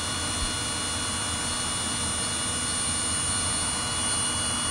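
DJI Avata 2 FPV drone's motors and propellers spinning at idle on the ground, a steady whir with a high whine: the throttle stick is still below the halfway point in normal mode, so the drone does not lift off.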